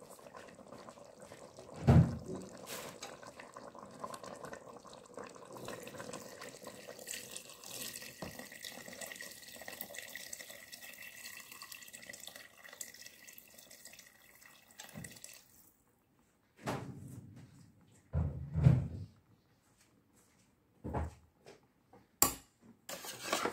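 Hot water poured in a steady stream from a stainless-steel pot into a pot of lamb stew, stopping abruptly after about fifteen seconds. A few knocks and thumps follow, the loudest a few seconds after the pour stops.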